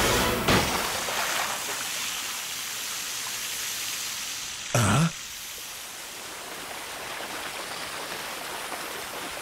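Steady rush of pouring water, like a waterfall, with a brief loud whoosh about halfway through.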